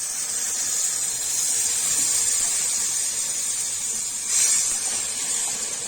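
Chana masala sizzling in a hot pan: a steady high hiss that swells briefly about four seconds in.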